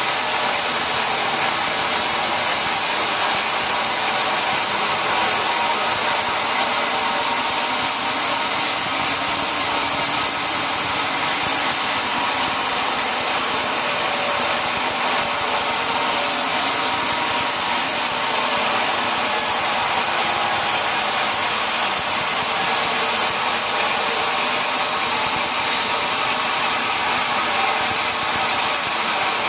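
Sawmill machinery running steadily: a loud, even mechanical noise with a hissing high edge that does not let up.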